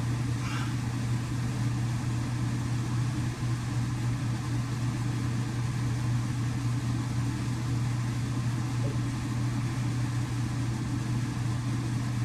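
Steady low background hum with no speech.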